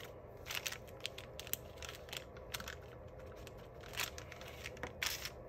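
Soft paper-handling noises: construction-paper pieces and a brown paper bag rustling and crinkling on a table, with scattered small clicks, and a glue stick rubbed on the paper around four seconds in.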